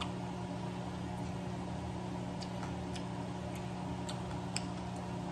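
A steady low hum with faint, scattered soft clicks of closed-mouth chewing and lip smacking, a few a second in the later part.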